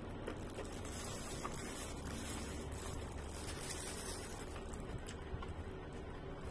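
A person chewing food with their mouth closed, over a steady background hum and hiss.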